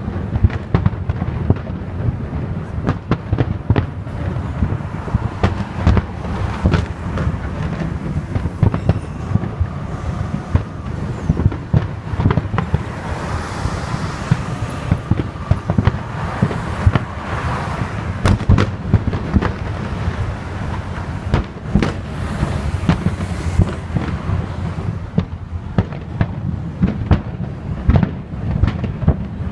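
Fireworks display: aerial shells going off in dense, continuous bangs and booms, many a second, over a steady low rumble.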